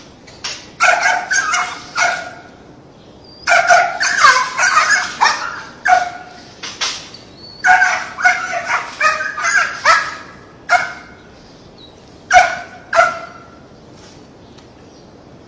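A dog barking and yipping in quick runs of short barks, with a few single barks after the runs stop.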